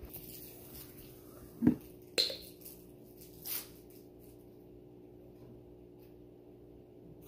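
Small objects handled on a table: a dull thump about one and a half seconds in, a sharp clink right after it, then a short rustle, over a faint steady hum.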